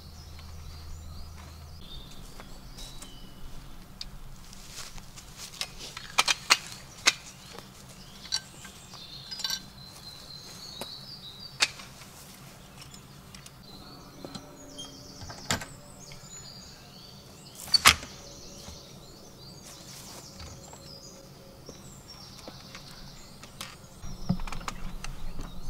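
Songbirds chirping in woodland, broken by scattered sharp clacks and knocks of camping gear and a metal ladder being handled; the loudest clack comes about 18 seconds in.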